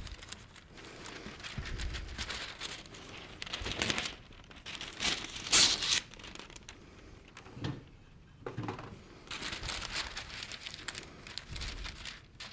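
Crinkling and rustling of kitchen wrapping material being handled, in short uneven bursts with the loudest about five and a half seconds in.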